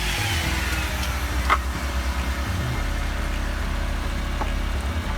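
A steady low engine rumble, running as if at idle, with a single sharp knock about a second and a half in.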